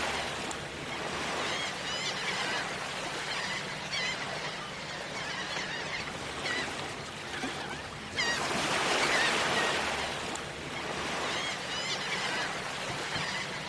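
Beach ambience: surf washing in, with shorebirds calling over it in short, high, repeated chirps. A wave swells up about eight seconds in.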